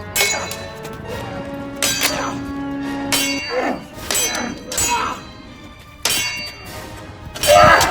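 Repeated metallic clanging: about seven sharp, ringing strikes roughly a second apart, with short cries in between. The loudest strike comes near the end.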